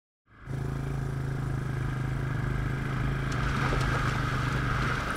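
Quad bike (ATV) engine running at a steady speed while driving over rough ground, starting a moment in with an even, unchanging hum.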